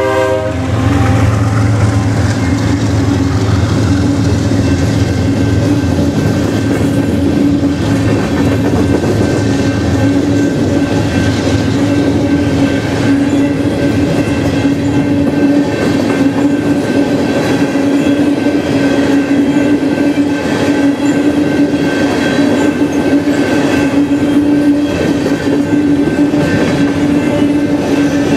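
A BNSF coal train's hopper cars rolling through a grade crossing: a steady rumble with wheels clattering over the rails. A steady ringing tone runs throughout, and the tail of the locomotive's horn cuts off right at the start.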